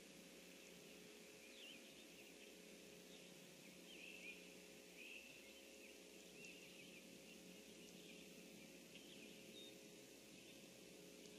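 Faint, scattered chirps and short trills of small birds over a steady low hum and hiss.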